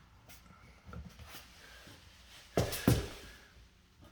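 Two sharp knocks close together, about two and a half seconds in, over faint handling noise.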